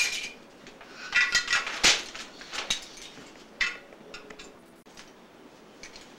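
Small hard toy pieces clinking and rattling as hands rummage through them, in irregular clusters of clicks, loudest in the first few seconds and then fainter and sparser.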